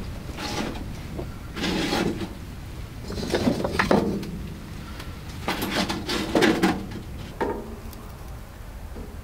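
Firewood and wood shavings being handled and set into a small wood stove: a series of short rustles and wooden knocks, each about half a second long, coming every second or two.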